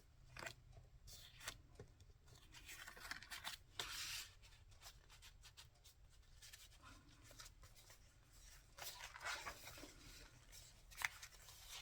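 Faint, intermittent rustling and scraping of paper and card being handled, a few short rustles at a time.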